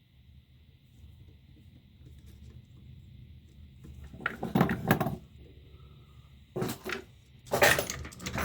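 Metal clattering and knocking from tools or parts being handled at a lathe, in three short bouts starting about halfway in, the last the loudest.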